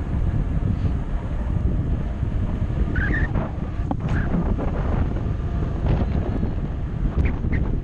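Wind rushing over a helmet or chest-mounted action-camera microphone on a mountain bike descending fast on asphalt, with tyre and road rumble, a sharp rattle about four seconds in, and a few brief high squeaks.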